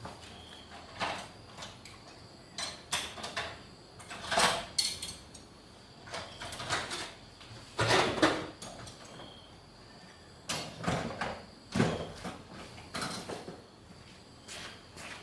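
Irregular knocks, scrapes and sliding sounds of metal tools and parts being handled, with a few louder strokes around four, eight, eleven and twelve seconds in.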